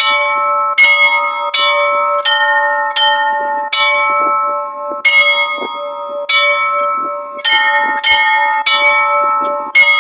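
Russian Orthodox church bells rung in a festal peal: several bells struck in a quick, uneven rhythm, roughly one to two strikes a second, each ringing on over a steady hum from a larger bell, with a short pause about halfway through.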